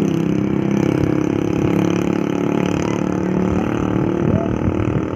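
Large tour bus's diesel engine running close by with road rumble, a steady low engine note that eases slightly near the end; no telolet horn is sounded.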